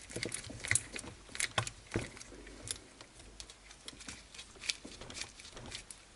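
Scattered light clicks and taps of a hex driver and hands working screws into the chassis plate of an RC buggy, irregular, a few per second.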